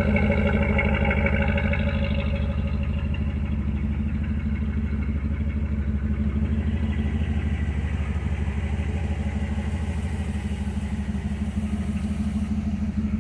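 Warmed-up carbureted car engine idling steadily at about 650 rpm. It has a brighter, higher edge for the first couple of seconds that then fades.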